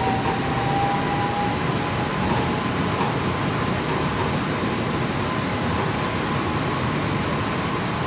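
Steady running noise inside a moving MRT Pink Line monorail car, with a faint electric whine that rises slowly in pitch as the train gathers speed.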